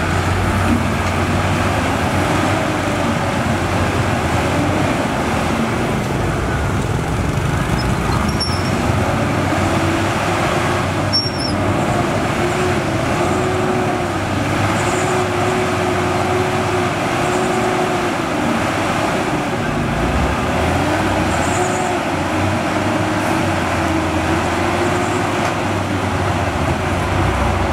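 Heavy diesel engine running hard, its pitch rising and falling again and again as it revs up and eases off, over a low steady drone.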